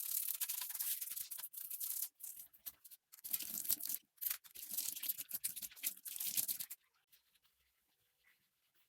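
Brisk scrubbing strokes, hissy and rasping, in several bursts with short breaks, stopping about two seconds before the end.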